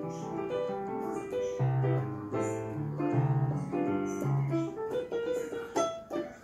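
Yamaha PSR-SX600 arranger keyboard played with both hands: chords over low held bass notes, the playing thinning out near the end.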